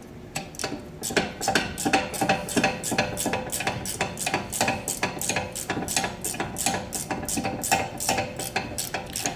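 Ratchet wrench with an 18 mm socket clicking in a steady rhythm, about four to five clicks a second, as a bolt on the rear brakes is turned.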